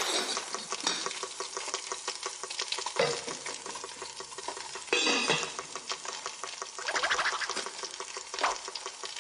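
Knife chopping and scraping sound effects: a dense, rapid run of clicks and scrapes, with louder strokes about three, five and seven seconds in.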